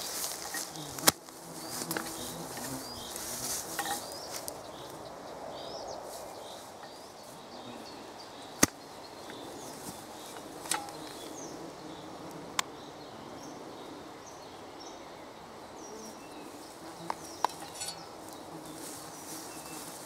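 Rustling in tall grass with a few scattered sharp knocks, the loudest about a second in and just before the middle, as a small hand hoe cuts planting notches into the soil. Small birds chirp throughout.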